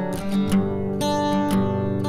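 Background music: an acoustic guitar strummed in an even rhythm, about two strokes a second, with no singing yet.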